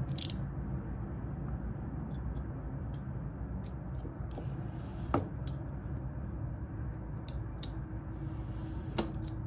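Scissors slitting the cellophane shrink-wrap on a phone box: scattered small clicks and plastic crinkles, with a sharper click about five seconds in and another near the end, over a steady low hum.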